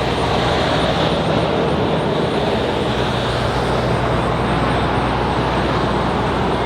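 Steady mechanical noise: a continuous rumble and hiss with a low hum underneath.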